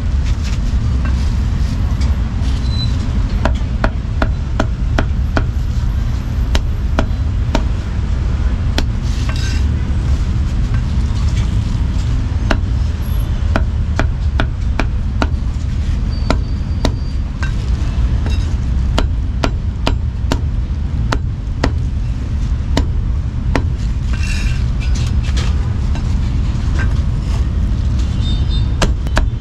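Cleaver chopping roasted meat on a thick wooden chopping block: sharp knocks at irregular intervals, sometimes in quick runs, over a steady low rumble.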